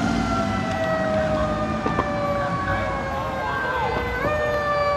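Fire engine siren wailing on an emergency response, its pitch sliding slowly down and then jumping back up about four seconds in.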